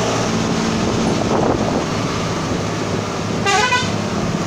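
Vehicle engine running steadily with road noise, heard from inside the moving vehicle. About three and a half seconds in, a short, wavering multi-tone horn sounds.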